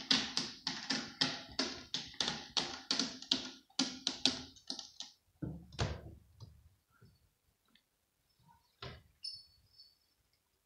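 Cat clawing a sisal scratching post in quick scratching strokes, about four a second, for some five seconds. A single knock comes about nine seconds in, then the toy fish's small bell jingles briefly near the end.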